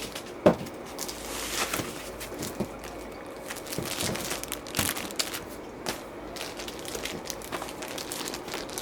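Laptop packaging being handled and unwrapped: irregular crinkling and rustling, with scattered clicks and a sharper knock about half a second in.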